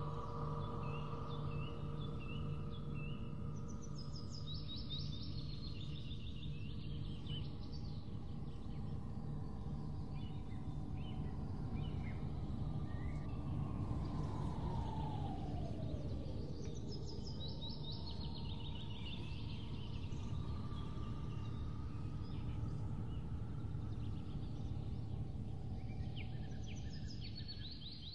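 Ambient background soundtrack: a steady low drone with held tones, with runs of bird-like chirping recurring every several seconds and a slow falling glide about halfway through.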